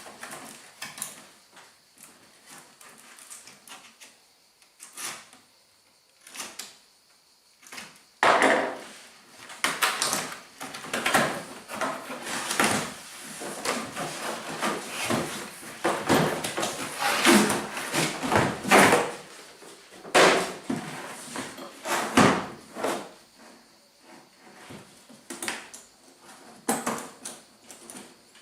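A cardboard box being opened and unpacked by hand: scraping, rustling and knocking as flaps are pulled open and the contents lifted out, sparse for the first several seconds and then busy and continuous until near the end.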